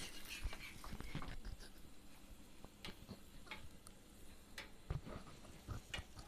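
A flat steel spatula scraping and clicking against an iron tawa as batter-coated eggplant slices are lifted and flipped: a string of short, separate scrapes and taps.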